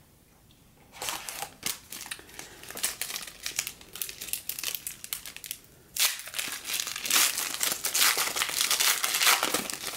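Foil wrapper of a 2015 Panini Diamond Kings baseball card pack crinkling as it is handled. The crinkling stops briefly, then comes back louder from about six seconds in as the pack is torn open.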